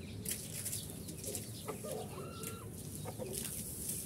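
Chickens clucking, with one drawn-out, level-pitched call about two seconds in.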